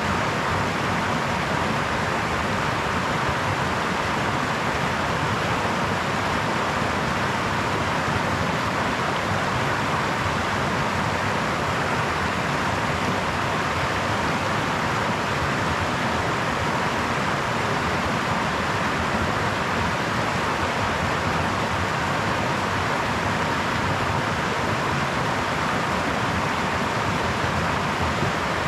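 Brook water running and babbling, a steady unbroken rush with no other sounds.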